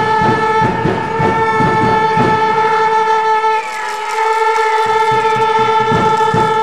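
A loud, steady horn-like tone held with several overtones, wavering briefly about three and a half seconds in, over irregular low thumps.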